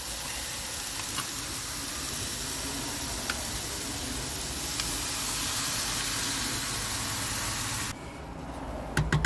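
Cold milk poured into a hot frying pan of chicken and vegetables, sizzling and hissing steadily. The sizzle drops off sharply about eight seconds in, followed by a few clicks of a spoon against the pan near the end.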